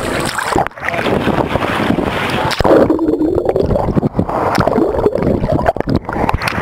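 Wind buffeting the microphone over water churning and sloshing against a boat's hull, broken by many sharp knocks and rubs.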